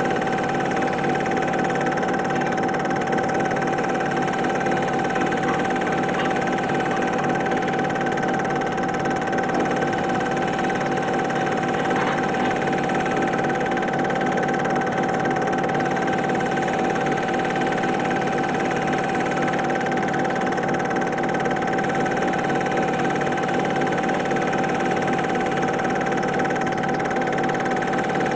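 Super 8 film projector running: a steady mechanical whir with a constant high tone held throughout.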